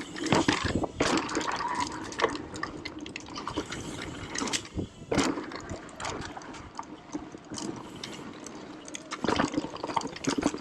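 Mountain bike descending a loose dirt trail: tyres crunching and skittering over dirt and gravel, and the bike rattling with many irregular sharp clicks and knocks over the bumps.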